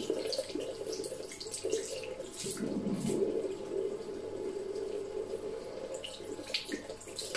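Water running from a tap into a sink.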